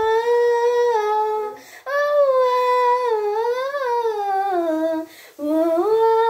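A child singing a cappella, holding long wordless notes. There are three notes with a short breath between each; the middle one sways up and down in pitch, and the last one rises into a held tone.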